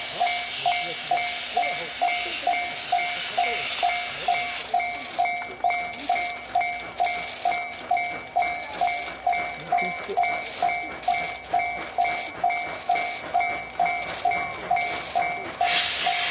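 Level-crossing warning bell ringing steadily at about two strokes a second, its two-pitch tone repeating evenly. Near the end a loud hiss of steam from the approaching steam locomotive comes in over it.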